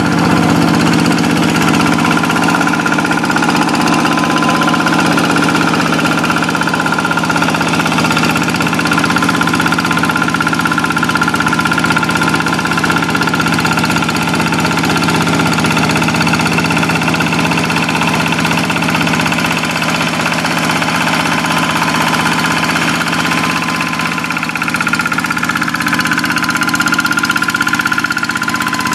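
Kubota single-cylinder diesel engine of a Quick hand tractor running steadily while pulling a plow through a rice paddy.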